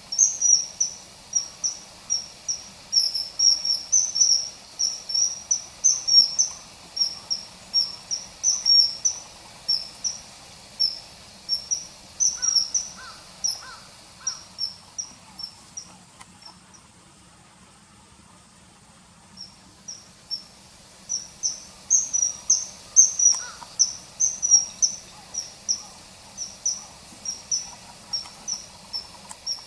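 Common kingfisher calling: short, high, thin notes repeated a few times a second, falling silent for about three seconds past the middle before starting again.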